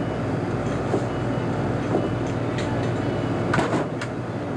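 A steady low machine hum, with a few sharp clicks of something hard against a container about three and a half to four seconds in.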